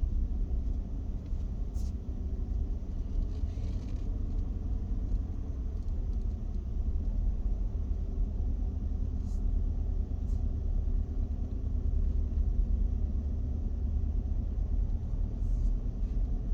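A car being driven on a paved road, heard from inside: a steady low rumble of tyres and engine.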